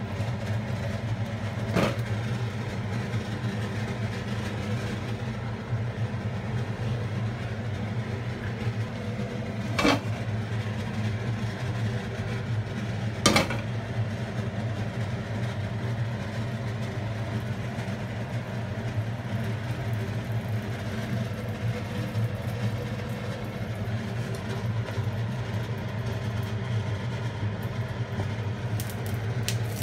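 A steady low mechanical hum, like a motor running, with three sharp clicks or knocks about 2, 10 and 13 seconds in.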